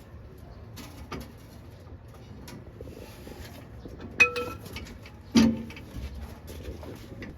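Metal clanks and knocks as the fuel tank of a Suzuki multicab is lowered from its mounts: light clicks and scrapes, then a sharp ringing clank about four seconds in and a heavier thud a second later.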